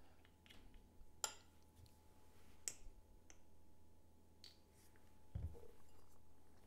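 Mostly quiet, with a few faint, sharp clicks and light taps from a plastic measuring spoon and a syrup bottle being handled over a ceramic bowl, and one dull low thump about five seconds in.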